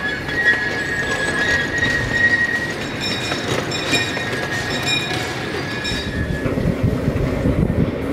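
Small-gauge ridable train rolling past, its steel wheels squealing steadily on the rails in a high, slightly wavering squeal, with some clicks in the middle. About six and a half seconds in the squeal stops and a lower rumble of the running train takes over.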